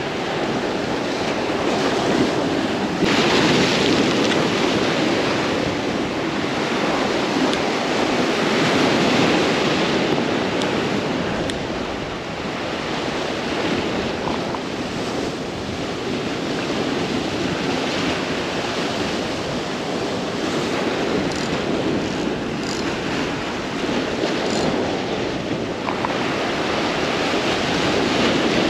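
Sea waves washing against the rocks of a jetty, swelling and easing every several seconds, with wind buffeting the microphone.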